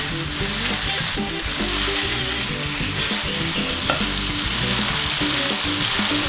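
Pieces of fried sea bass sizzling steadily as they are stir-fried in a hot pan of chili-garlic sauce, with a spatula stirring and clicking against the pan.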